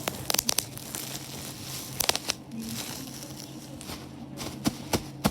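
Bubble wrap being popped: sharp pops in small clusters, several in the first second, a couple about two seconds in and a few more near the end, with plastic crinkling between them.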